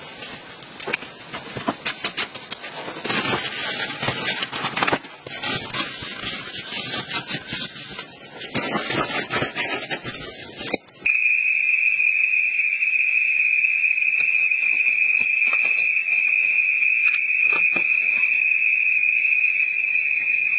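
Rustling and scraping of a person shifting about on a woven bamboo mat and floor. About halfway through, this gives way suddenly to a loud, steady, high-pitched drone of night insects, with a second, higher chirping tone that comes and goes.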